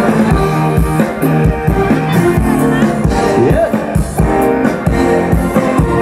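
A live pop band playing loud over the stage sound system, guitar and keyboard over a drum beat.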